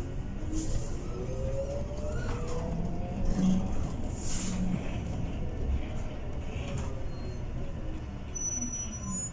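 Bolloré Bluebus 12-metre battery-electric bus on the move: the electric traction motor's whine rises in pitch as it picks up speed, then falls as the bus slows near the end, over steady road and tyre noise.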